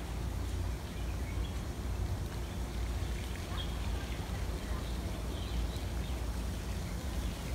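Outdoor park ambience: a steady low rumble with faint distant voices and a few faint, short high chirps.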